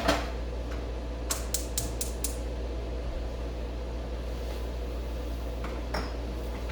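A pan clanks down on the stovetop, then a gas burner's igniter clicks five times in quick succession, about four or five a second, over a steady low hum.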